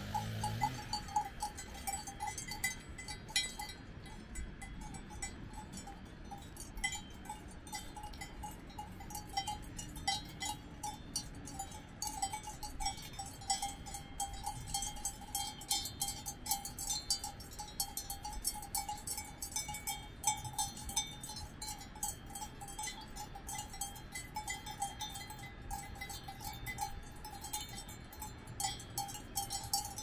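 Cowbells on grazing cows clanking unevenly as the animals move their heads, several bells ringing at once.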